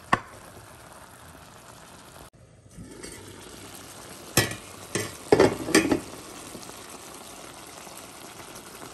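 Chicken adobo simmering in a stainless-steel pan: a steady bubbling hiss, broken off briefly about two seconds in, with a handful of sharp knocks about halfway through.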